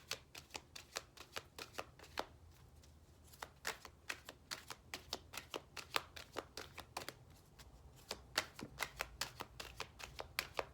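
A deck of tarot or oracle cards being shuffled by hand: a rapid run of sharp card snaps, about four or five a second, broken by two short pauses.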